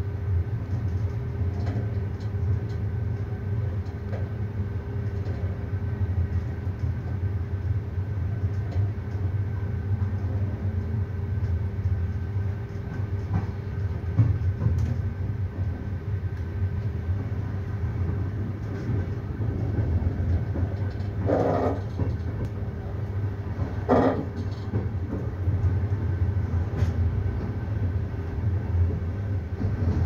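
Steady low rumble and hum of a passenger train heard from inside the carriage as it rolls slowly over the tracks, with two short, louder noises about two thirds of the way through as the wheels cross points.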